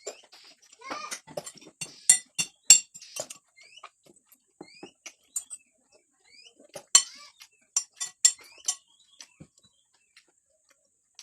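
Cutlery clinking and scraping against a plate during a meal: sharp clinks in clusters, the loudest around two to three seconds in and again around seven to eight seconds in.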